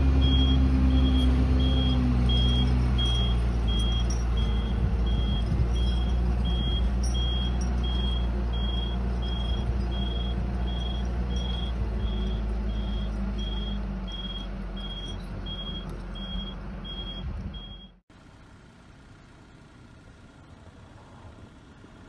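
Heavy snow-clearing machinery running, with a reversing alarm beeping at one steady high pitch, about two beeps a second. The engine fades slowly and everything cuts off about 18 s in, leaving a faint steady noise.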